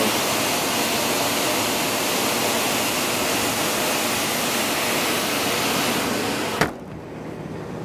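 Steady rush of air and machinery from a running rooftop energy recovery ventilator and its supply air blower. Near the end a sharp click cuts it off, leaving a much quieter low hum.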